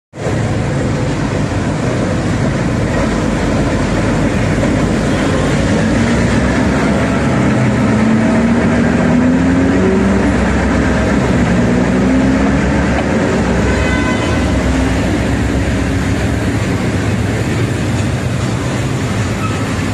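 Diesel locomotive hauling a work train with a crane car across an elevated rail bridge: a steady, loud rumble of engine and rolling wheels, with a droning tone that rises in pitch around the middle.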